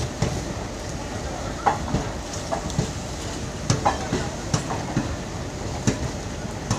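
Passenger coaches of a departing express train rolling slowly past, their wheels knocking over the rail joints in irregular clacks over a steady rumble.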